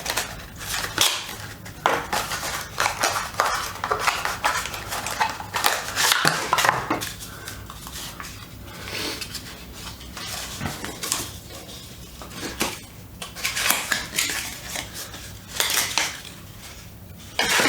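Hands unpacking a small audio recorder from its box: irregular rustling, clicking and light knocking of packaging and hard plastic.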